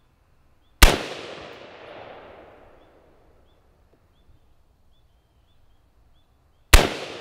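Two rifle shots from an F&D Defense XAR folding AR-15 in .223, about six seconds apart, each a sharp crack followed by a long echo that fades over about two seconds.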